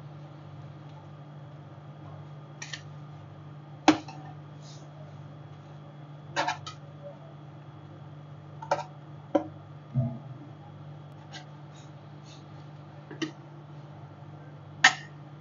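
Scattered sharp metallic clinks and taps, about eight in all, the loudest about four seconds in and near the end, from utensils striking a rolled ice cream cold plate, over a steady low hum.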